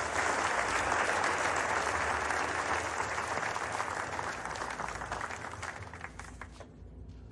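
A small audience applauding, dying away into a few scattered claps near the end.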